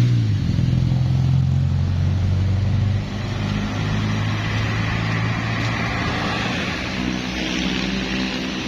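A heavy vehicle's engine passing close: a low drone that drops off about three seconds in, then quieter road traffic.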